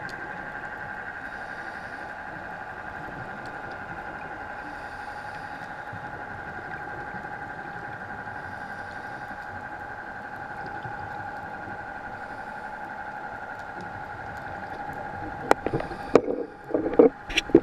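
Steady motor hum with a few fixed tones, heard underwater. Several loud knocks and clatters come near the end.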